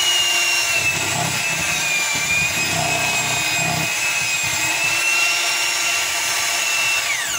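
Electric hand mixer running steadily with a motor whine, its beaters churning a thick cream cheese and marshmallow fluff filling in a bowl. Just before the end the whine falls away quickly as the motor is switched off and spins down.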